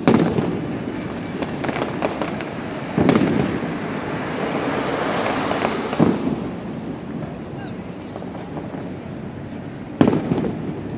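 Aerial fireworks bursting: four loud booms, at the start and about 3, 6 and 10 seconds in, each rumbling away, with a hissing crackle building between the second and third.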